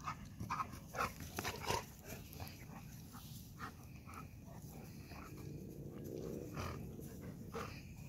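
Golden retrievers at play: a few short, sharp grunting sounds in the first two seconds, then one longer pitched grumble from a dog around the middle.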